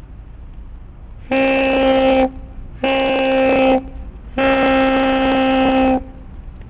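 Night watchman's curved horn blown in three steady, loud blasts on the same note, the third the longest.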